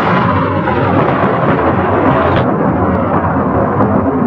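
Continuous deep rumble of an Atlas rocket booster exploding into a fireball; a higher hiss over the rumble dies away about two seconds in.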